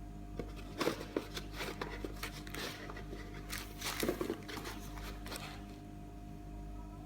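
Packaging being handled during an unboxing: a run of short rustles, crackles and small knocks for about five seconds, over a steady low hum.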